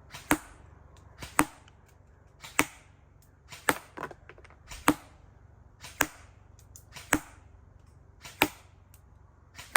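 Krytac Trident SPR airsoft electric rifle firing single shots, about nine sharp cracks spaced roughly a second apart, each with a faint tick just before it.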